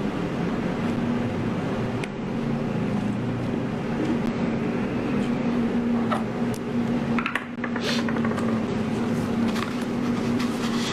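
Steady background hum with a constant low tone, and a few light clicks of small parts being handled about six to eight seconds in.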